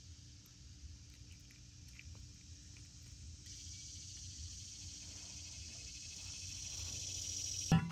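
Steady high-pitched buzzing of an insect chorus, getting louder about halfway through, with a loud knock right at the end.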